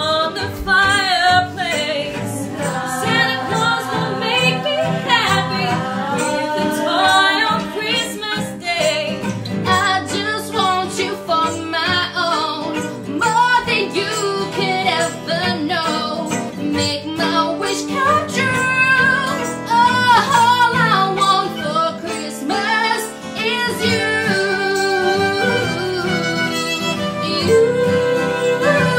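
Group of singers, women's voices leading, singing a Christmas song with acoustic guitar and violin accompaniment.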